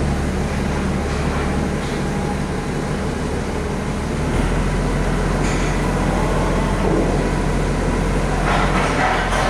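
Heavy diesel truck engine running with a steady low drone; about four seconds in the drone shifts to a lower pitch.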